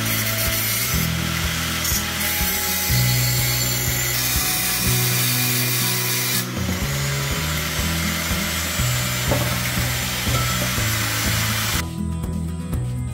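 Angle grinder with a thin cut-off disc cutting through the metal pipe ends of a motorcycle's de-cat exhaust section, stopping near the end. Background music plays under it.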